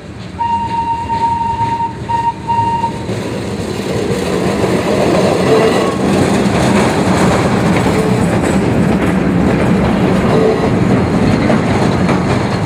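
A 1911 electric tram passes close by over a level crossing, its wheels rumbling and clattering on the rails. The noise builds from about four seconds in and stays loud. At the start a high signal tone sounds, one long note and then two short ones.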